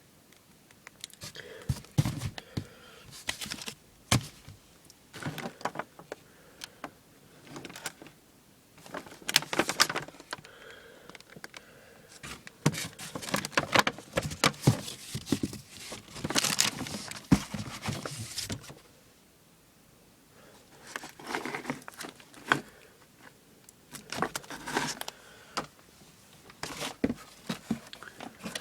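Fireworks and their packaging being handled: bursts of rustling, crinkling and light knocks, broken by short pauses and one longer lull a little after halfway.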